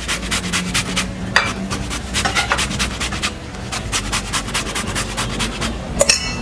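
Santol flesh being grated on a handheld metal cheese grater: rapid, rhythmic rasping strokes, several a second, with a sharper clink near the end.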